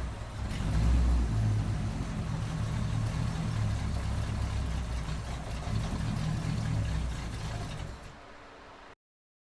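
A truck engine sound running steadily, which drops to a fainter level about eight seconds in and then cuts off abruptly.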